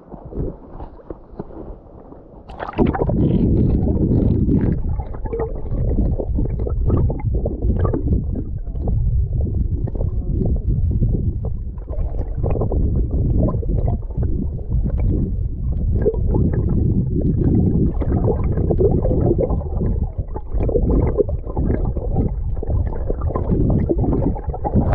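Muffled rumbling and gurgling of water picked up by a camera held underwater, with scattered small crackles and clicks. It jumps louder about three seconds in.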